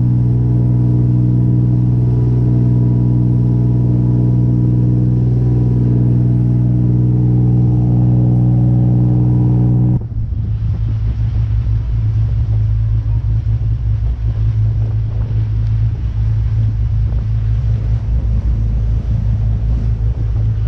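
Fishing boat's engines running steadily at cruising speed with water rushing past the hull. About ten seconds in the sound changes abruptly to a lower, uneven engine rumble as the boat moves slowly.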